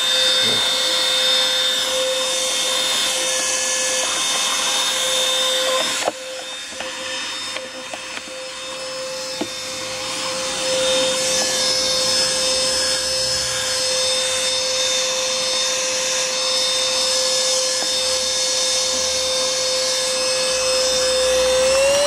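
Vacuum cleaner running steadily, a constant whine over a rushing hiss, as its nozzle is drawn over a dusty pleated-paper panel air filter to suck the dust out. The motor's pitch rises slightly at the very end.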